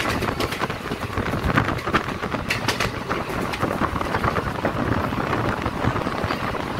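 Moving train heard from inside the carriage: a steady rumble with irregular clicks and rattles.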